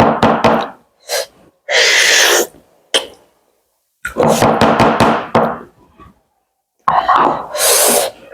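Close-miked eating of buffalo bone marrow: bursts of slurping and sucking with wet mouth clicks and a few knocks, broken by short silences. The longest slurps come about two seconds in and near the end.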